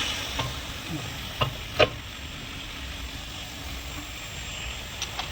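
A few sharp metallic knocks, the loudest a pair about two seconds in, as a car's suspension part is struck while being worked loose, over a steady hiss.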